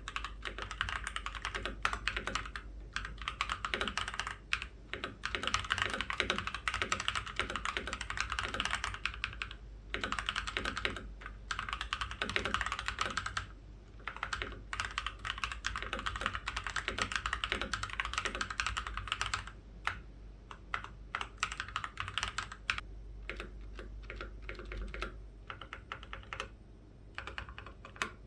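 Typing on an ASUS ROG Scope II keyboard with pre-lubed ROG NX Snow linear switches and sound-dampening foam, on a wooden desk: fast runs of keystrokes broken by short pauses, slowing to more spaced keystrokes in the last third.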